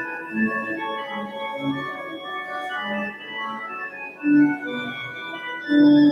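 Organ playing slow, held chords, with a louder low note about four seconds in and again near the end.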